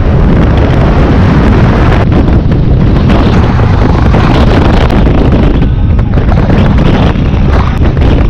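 Loud, steady wind roar buffeting the microphone of a camera on a touring motorcycle riding at road speed, with the bike's running noise underneath.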